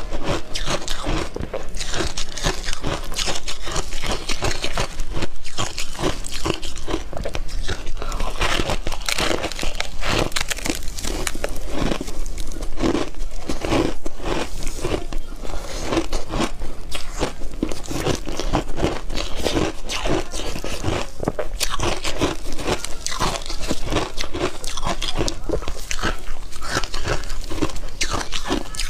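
Close-miked biting and chewing of hard ice chunks dusted with matcha powder: a dense, continuous run of loud, sharp crunches as the ice cracks between the teeth.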